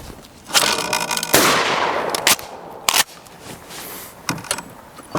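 A Remington 870 Wingmaster 12-gauge pump shotgun fires once at a clay target, and the blast echoes and fades over about a second. A shorter noise comes just before the shot, and sharp clicks follow, typical of the pump action being worked.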